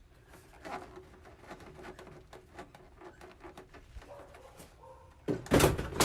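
Intake hose clips and snorkel being worked loose by hand and spanner: soft clicks and rubbing, then a louder bout of scraping and clattering about five seconds in as the rubber intake tubing is pulled and handled.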